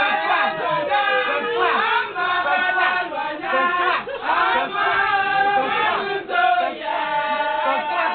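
A crowd of many voices at once, shouting, calling and chanting over one another, with a few held, sliding notes.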